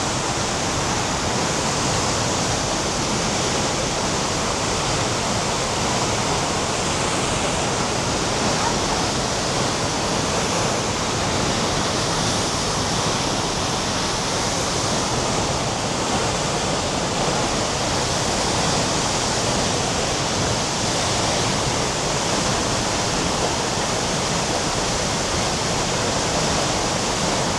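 Tegenungan Waterfall: a large waterfall crashing into its plunge pool, a loud, steady rush of falling water.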